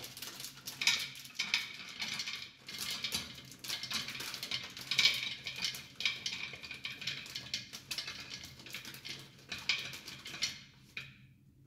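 Almonds dropped by hand into a glass container, a dense run of small clicks and clatters as the nuts hit the glass and each other, stopping about a second before the end.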